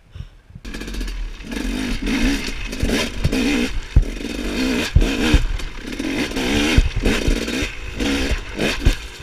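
Two-stroke dirt bike engine revving up and down over and over as it is ridden along a rough, rocky woods trail, with several sharp knocks as the bike hits rocks and roots. It starts about half a second in, after a moment's quiet.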